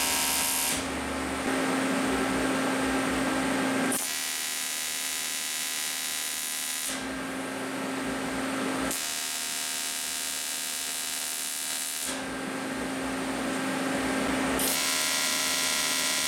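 TIG welding arc on aluminium sheet, buzzing and crackling steadily while the panels of a fuel cell box are tacked together. Its tone shifts every few seconds between a lower hum and a harsher, hissier buzz.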